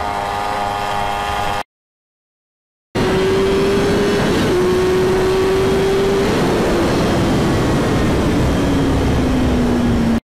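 A vehicle engine running steadily. After about a second of dead silence it returns as a loud ride with heavy wind noise over the engine, the engine note sinking slowly in the second half.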